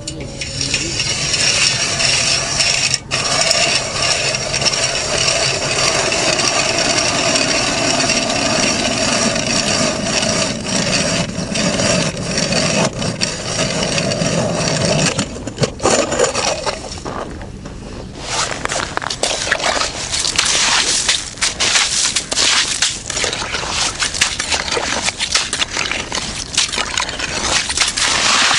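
Hand ice auger (Tonar Tornado-M2, 130 mm) cutting into river ice: a steady grinding scrape with a ringing tone for about fifteen seconds. After a brief lull near the middle comes a rougher, crackling scrape of ice and slush.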